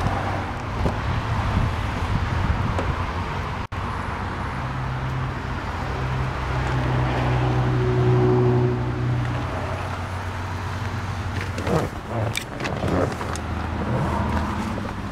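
A motor vehicle's engine drones over street noise, swelling over several seconds and then fading, followed by a few knocks and clicks near the end.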